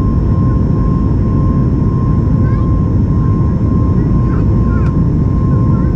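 Steady cabin roar of a Boeing 737 MAX 8's CFM LEAP-1B jet engines and airflow, heard from inside the passenger cabin, with a constant whine-like tone running through it.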